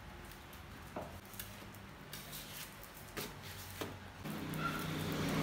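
A few sharp clicks and taps from small dogs on a hard tile floor, one nosing at a piece of kibble. Near the end a low droning hum comes in and grows louder.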